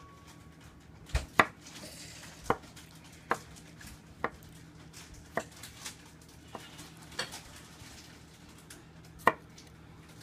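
Kitchen knife slicing boiled red-cap boletus mushrooms on a wooden cutting board: the blade knocks on the board about nine times at an uneven pace, roughly once a second.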